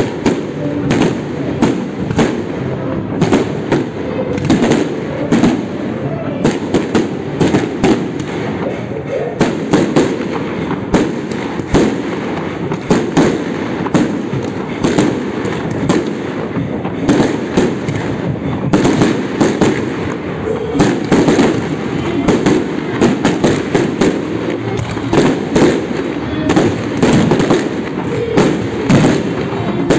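Aerial fireworks display: a continuous barrage of shell bursts, several sharp bangs a second over a steady rumble, with no let-up.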